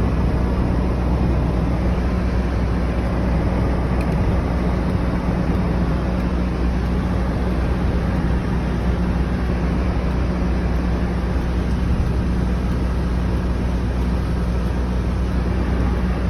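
Harley-Davidson motorcycle engine running steadily at a constant pitch, with a steady rushing noise over it.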